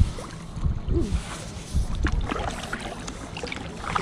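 Water splashing and dripping around a kayak, small irregular splashes throughout, with wind buffeting the microphone as a low rumble during the first second.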